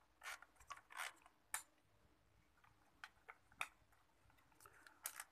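Faint, scattered small plastic clicks and rustles of hands handling a CPU cooler and unplugging its fan connector from the motherboard header.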